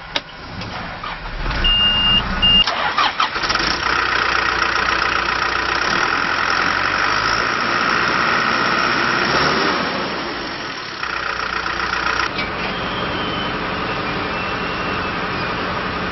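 John Deere 310SJ backhoe loader's diesel engine cold-starting: a click and a high beep as it cranks for a couple of seconds, then it catches and runs with a high whine, settling to a steadier idle about ten seconds in.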